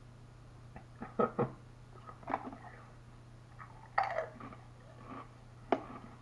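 Short crunches and mouth sounds of a person biting and chewing Lay's STAX Flamin' Hot stacked potato crisps, with a sharp click near the end as the canister's plastic lid is handled.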